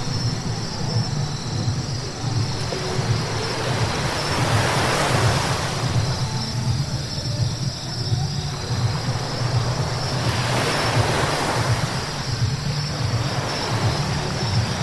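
Car driving on a rain-wet road: a steady low road rumble with the hiss of tyres on wet asphalt, swelling twice, about a third of the way in and again past two-thirds.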